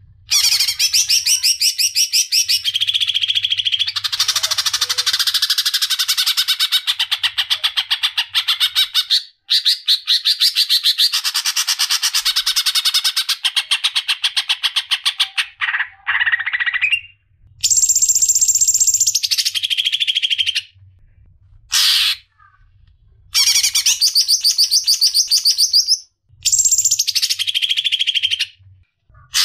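Cucak ijo (greater green leafbird) singing a loud, rapid trilled song, phrases of fast repeated notes several seconds long that shift between higher and lower pitch, broken by short pauses that come more often in the second half.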